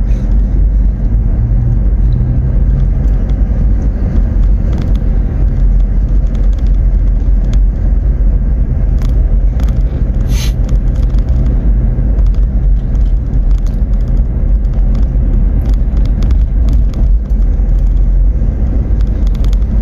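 Inside a moving car: steady low engine and road rumble while driving. There is a short sharp click about halfway through.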